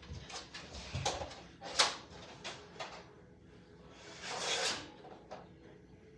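Scattered clicks and knocks, with one sharp, loud hit just before two seconds in and a longer scraping rush about four and a half seconds in.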